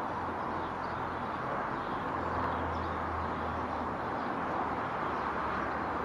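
Steady outdoor background hiss with a low hum that fades about four seconds in. No pecking is heard.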